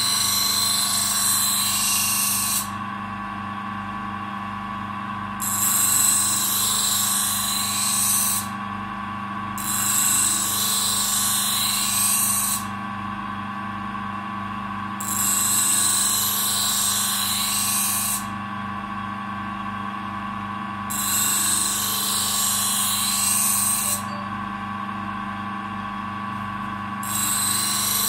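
Small bench grinder running steadily while a Benchmade Hunt Crooked River knife blade is pressed to its wheel: six grinding passes of about three seconds each, each a hiss of steel on the abrasive wheel, with pauses of a few seconds between. This is the edge bevel being resharpened.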